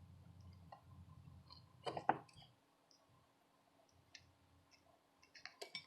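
Faint clicks and light taps of small tools on a circuit board while old solder is cleaned off a pad: a pair about two seconds in and a quick cluster near the end.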